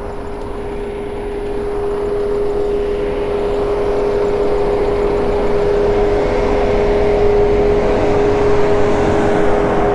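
Wind and riding noise from an electric bike pulling away, swelling over the first few seconds and then holding steady, with a constant hum running through it.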